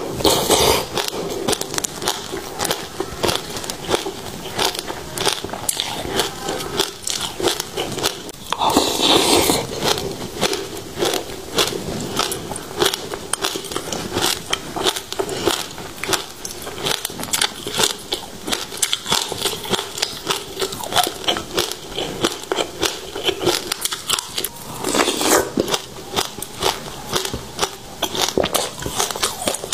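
Passion fruit seeds being bitten and chewed: a dense run of quick, crisp crackles and crunches, with a few louder, denser stretches about nine seconds in and near twenty-five seconds.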